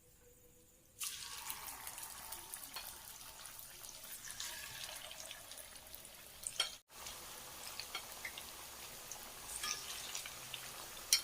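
Marinated, flour-coated fish going into hot oil about a second in, then the oil sizzling and crackling steadily around it as it deep-fries, with a brief break past the middle.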